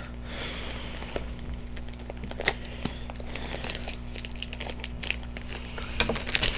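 A foil Pokémon booster pack being torn open and its wrapper crinkled by hand: a steady run of small sharp crackles and rustles.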